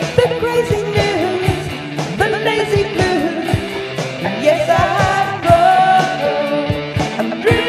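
A rock-pop song playing: a sung vocal line over guitar, with a steady drum beat.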